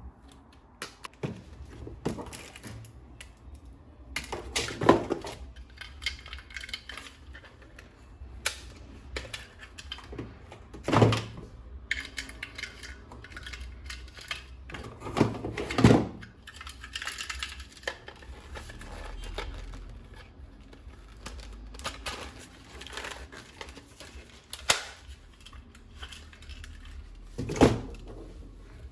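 Plastic toy gun parts and packaging being handled: scattered clicks and taps, with a few louder knocks several seconds apart.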